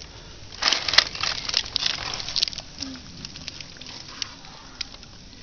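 Dry leaves and gravel crackling and rustling under a person shifting and leaning down, a dense run of about two seconds followed by fainter scattered clicks.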